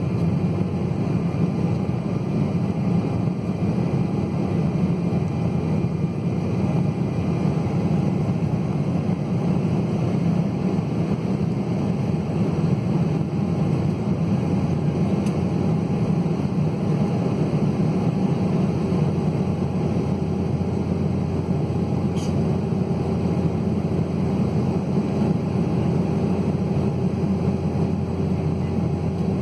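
Cabin noise inside an Embraer 190 airliner in flight: the steady sound of its CF34 turbofan engines and the airflow past the fuselage, even in level, with faint steady engine tones above it.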